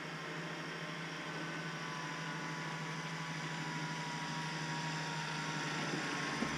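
Engine of a tracked Kubota RTV utility vehicle running under load as it tows an ice shack uphill through snow: a steady engine hum under a noise haze, growing gradually louder as it comes nearer.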